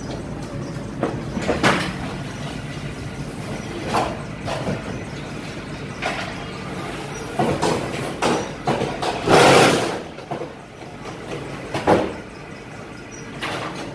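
Fully automatic fly ash brick making machine (Bhagavati Hydraulic M1) running steadily through its pressing cycle, broken by sharp metallic clanks every two to three seconds. The loudest, longest clank comes about two-thirds of the way through.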